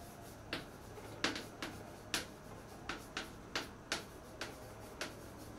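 Chalk writing on a blackboard: an irregular run of about a dozen sharp taps as the strokes of each letter strike the board.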